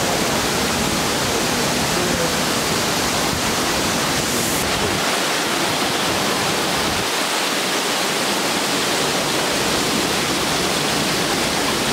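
Rushing river water: a steady, loud rush that does not change.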